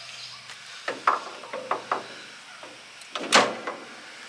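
A few light knocks and clicks of tools and metal parts being handled while mounting a shock absorber, then one louder clank a little over three seconds in.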